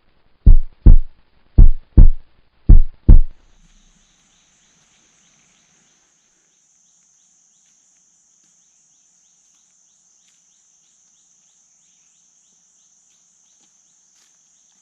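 Heartbeat sound effect: three loud double thumps, lub-dub, in the first three seconds. After them a faint steady high hiss runs on.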